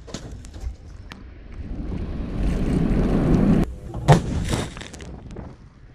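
152 mm Giatsint-B towed howitzer fire: the rumbling, hissing aftermath of a shot swells and then cuts off suddenly, and about four seconds in a single sharp bang of a gun firing rings out briefly.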